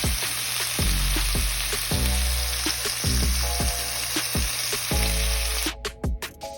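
Lamb steaks sizzling in olive oil in a frying pan, a steady hiss over background music with a deep, repeating bass beat. The sizzle cuts off near the end, leaving only the music.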